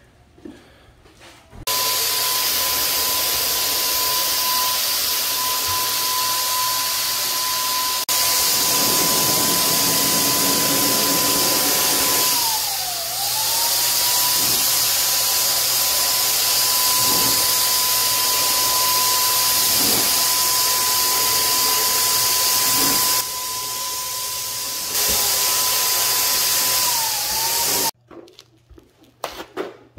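Handheld electric paint sprayer running steadily, a motor whine with a steady high tone that dips in pitch briefly twice. It cuts off suddenly near the end.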